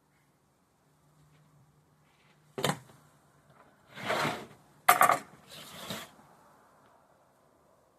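Grilling gear being handled: a sharp clack about two and a half seconds in, then a few short scraping clatters between about four and six seconds in.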